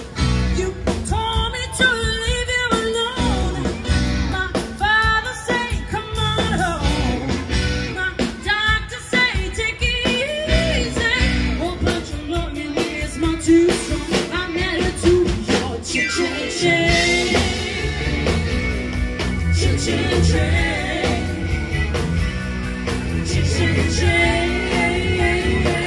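Live rock band playing a song with electric guitar and drum kit, with voices singing the melody over a steady beat.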